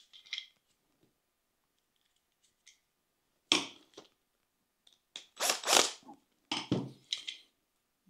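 Sharp plastic clicks and clacks of a solar street light's parts being handled and snapped together. They come in scattered bursts, with the densest run about five to six seconds in.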